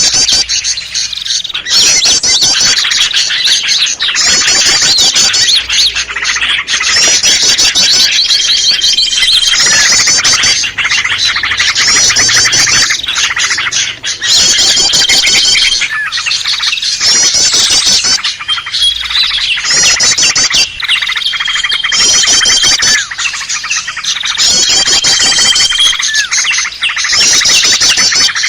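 A loud, dense chorus of small songbirds such as prinias and bulbuls, played as a looped bird-lure recording. Bursts of fast high trills repeat about every two seconds, with short held whistles between some of them.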